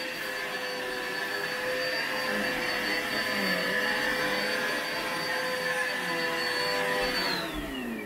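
Eureka bagless upright vacuum cleaner running on low carpet: a steady motor whine over the rush of suction. Near the end the whine falls in pitch as the motor spins down.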